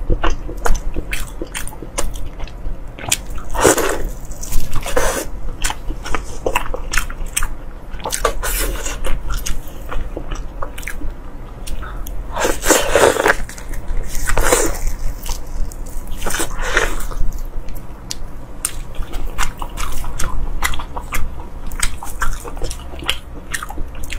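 Close-miked eating: wet biting and chewing of saucy food, with many small sharp clicks and smacks and a few louder, longer wet bursts.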